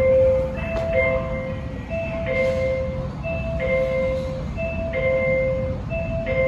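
Door-open chime of a custom Hitachi hydraulic elevator: a two-note ding-dong, higher note then lower, repeating about every 1.3 seconds while the car doors stand open.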